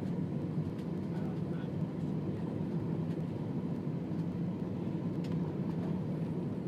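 Steady cabin noise inside an Airbus A320 on final approach, a low, even rumble of engines and airflow heard from a window seat over the wing.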